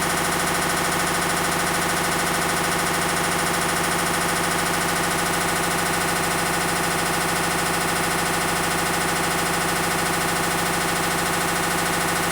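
Hitachi BEAT WASH washing machine spinning with a loud, steady mechanical noise, which the owner puts down to a failed clutch.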